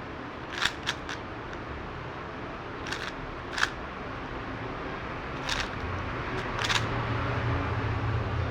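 Magnetic speed cube being turned during a timed solve: scattered sharp clicks and clacks of its layers turning, some in quick pairs.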